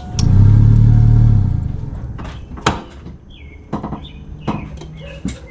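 Electric fuel lift pump switched on, humming loudly for about a second and a half and then fading as it fills the new CAT fuel filter and adapter. A quieter, steady hum sets in near the end, with scattered clicks and knocks.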